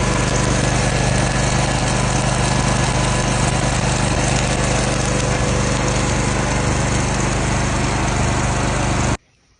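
Engine of a truck-mounted, engine-driven welder running steadily at a constant speed, with a steady hiss over it; the sound stops abruptly near the end.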